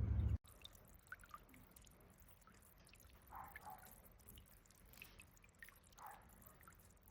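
A low steady hum cuts off abruptly under half a second in. Then a small solar fountain's water burbles and drips faintly, with scattered small drops plinking.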